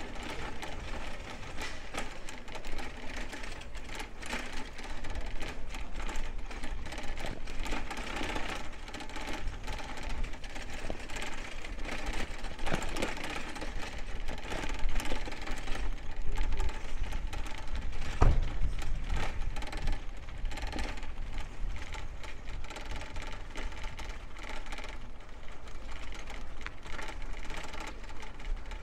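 A bicycle ridden over city streets: rapid mechanical ticking and rattling from the bike over steady street noise, with a single low thump about two-thirds of the way through.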